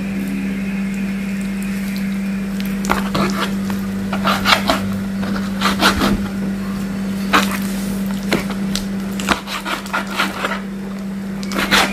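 Kitchen knife cutting raw chicken breast on a plastic cutting board: scattered knocks and taps of the blade against the board, over a steady low hum.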